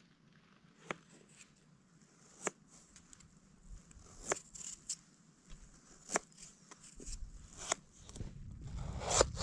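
Knife cutting potatoes, with about six sharp taps spaced one and a half to two seconds apart.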